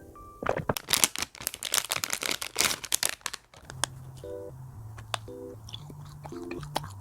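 Dense crisp crackling and crunching for about three seconds, then light background music with a simple bouncing bass line and short chords takes over.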